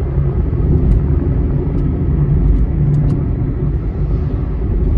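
Car driving at road speed: a steady low rumble of engine and tyre noise, with a few faint clicks.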